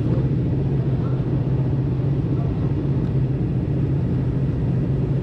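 Steady low mechanical rumble, even and unchanging, like an engine running.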